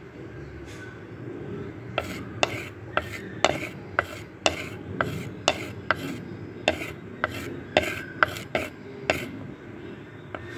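A wooden spatula stirring chopped onions and vegetables in a clay pot, with sharp knocks and scrapes against the pot about twice a second. The stirring starts about two seconds in and stops near the end.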